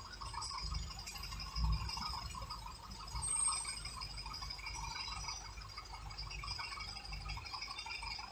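Inside a vehicle cabin in slow traffic: a low engine rumble that swells and dips, with a steady buzzing rattle over it.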